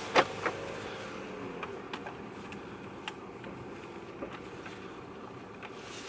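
Car engine running steadily at low revs, heard from inside the cabin, with a sharp click just after the start and a few fainter clicks scattered through.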